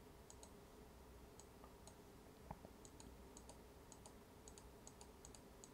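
Near silence: a faint room hum with quiet computer clicks, about fifteen quick double ticks at uneven intervals and one slightly louder tick about halfway through.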